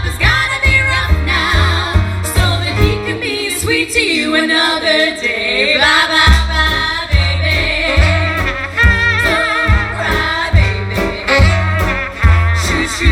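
Live swing band music: women's close-harmony singing with vibrato over double bass, drums and horns. The bass drops out briefly about four seconds in while a sliding line rises, then the full band comes back in.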